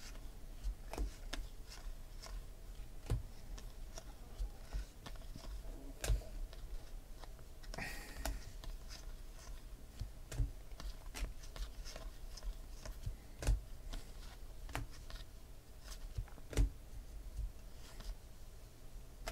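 Stacks of baseball trading cards being leafed through and dealt by hand: card stock sliding and rustling, with scattered light clicks and taps as cards are snapped over and set down on piles.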